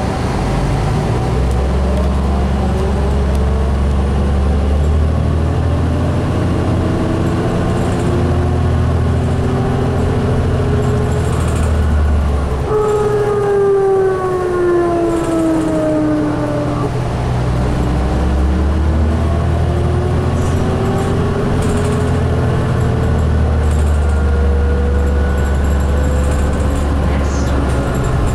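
2004 New Flyer DE60LF diesel-electric hybrid bus heard from inside: the Caterpillar C9 diesel's low drone under the whine of the Allison EP50 hybrid drive, which rises in pitch as the bus gathers speed. About halfway through, the engine drops back and the whine falls as the bus slows. Then the drone returns and the whine climbs again as the bus accelerates.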